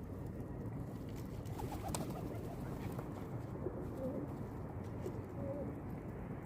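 Pigeons cooing softly over a low steady background hum, with a few faint ticks.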